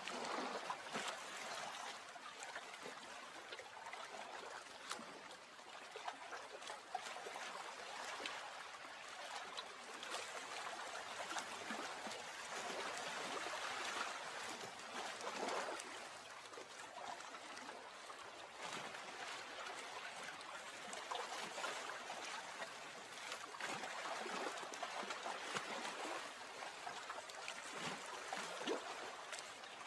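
Water trickling and lapping, a steady gentle wash with small swells and light splashes.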